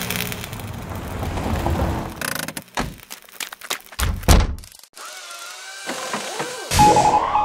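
Cartoon sound effects: a rushing noise, then a quick series of knocks and thuds, a wavering tone, and a tone sliding upward near the end.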